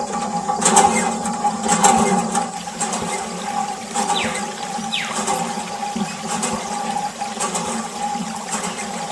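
Water gushing and splashing from a miniature water pump, over a steady hum, with scattered small clicks and splashes.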